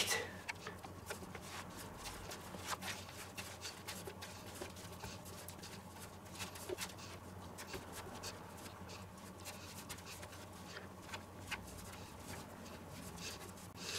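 Pizza dough being kneaded by hand on a floured wooden board: faint, irregular slaps and presses of the soft, oily dough against the wood, over a low steady hum.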